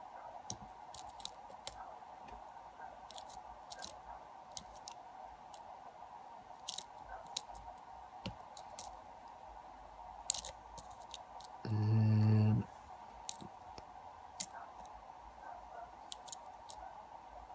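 Scattered light clicks and small metal scrapes of a lock pick working the pins of a pin-tumbler lock, setting pins one at a time, over a faint steady hum.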